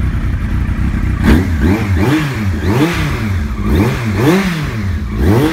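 Carburetted Yamaha YZF-R1 inline-four sport bike with a Yoshimura exhaust, idling, then revved in a series of about five quick throttle blips that rise and fall.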